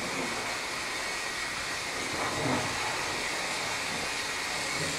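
Model steam locomotive with a tender-mounted motor running around the track, a steady noisy whirr with its wheels on the rails. The noise is typical of a budget, older model.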